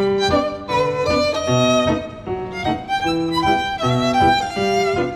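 Background music: a violin melody over a repeating low accompaniment, its notes changing several times a second.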